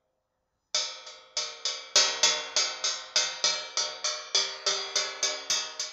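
Intro music: a steady run of struck, ringing notes, about three a second, with crisp cymbal-like ticks joining about two seconds in.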